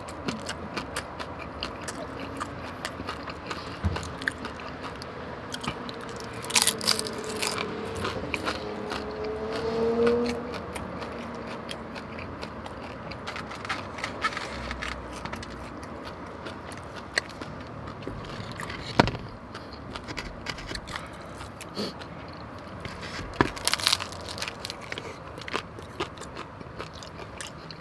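Close-up chewing and biting of birria tacos: wet mouth clicks, smacking and some crunching, in irregular bursts. A brief rising hum rises out of the chewing about ten seconds in.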